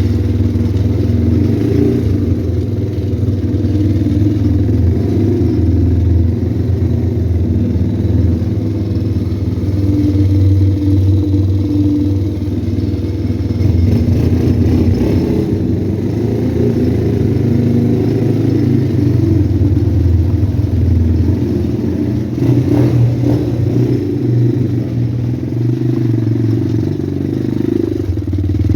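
Pit bike's small single-cylinder engine running steadily, its pitch shifting a little as the throttle changes.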